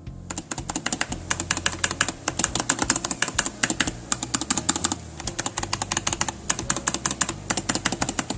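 Fast typing on a mechanical keyboard fitted with DSA R1 profile keycaps topped with polymer-clay food designs: a continuous clatter of key presses, with a brief pause about five seconds in.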